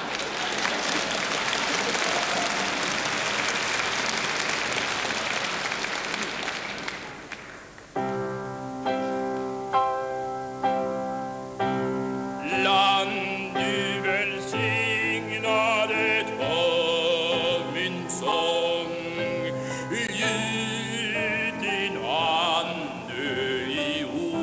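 Audience applause fading out, then a grand piano plays several slow introductory chords, and about twelve seconds in a male singer comes in with an operatic voice and wide vibrato over the piano.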